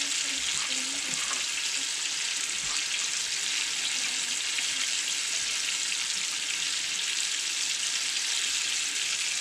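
Flour-dredged burbot chunks deep-frying in hot oil in a cast-iron skillet: a steady, even sizzle.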